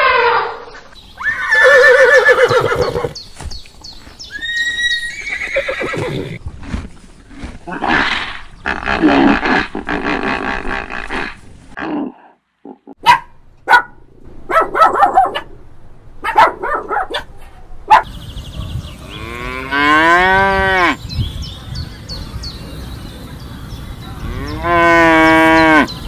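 A run of animal calls cut together: an elephant calling, a puppy's short yips, then cattle mooing twice near the end, long loud calls with the first rising in pitch.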